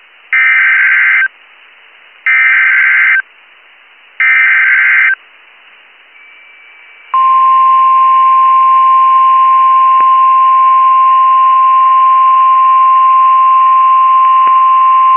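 Emergency Alert System header: three short bursts of SAME data tones, each just under a second long, about two seconds apart. About seven seconds in, a steady single-pitch attention tone near 1 kHz begins and holds, announcing a National Weather Service tornado warning.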